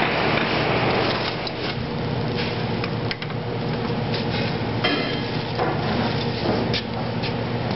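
Foot-operated two-stage bellows of an antique coal forge being pumped: a steady rush of air with scattered wooden knocks and clicks from the bellows, over a steady low mechanical hum.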